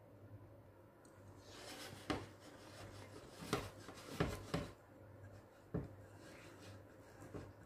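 Wire balloon whisk stirring thick cake batter in a glass bowl: a wet, rubbing swish, with several sharp clicks and knocks against the bowl.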